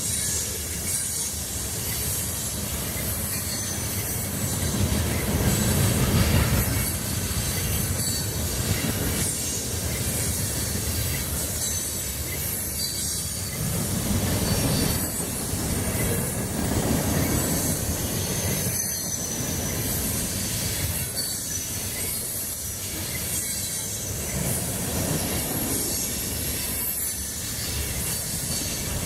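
Intermodal freight train cars rolling past steadily, the steel wheels rumbling on the rails with squealing, in swells every few seconds.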